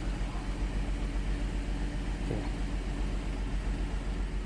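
2008 GMC Acadia's 3.6L V6 idling just after starting, with a steady pulsing beat. Cylinders 3 and 5 are misfiring (code P0300), which the owner traces to a stretched timing chain.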